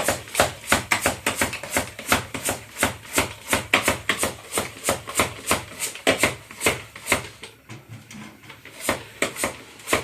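Foot pump being worked fast, a quick, even rhythm of air-pumping strokes, about three or four a second, with a short break a little past halfway. It is inflating a tubeless bicycle tyre whose bead has not yet seated in the rim.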